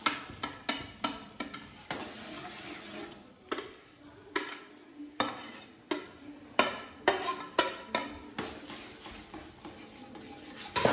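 Wooden spatula stirring and scraping in a steel pan in quick, irregular strokes as roasted semolina is stirred into boiling coloured water for kesari, with knocks against the pan and plate.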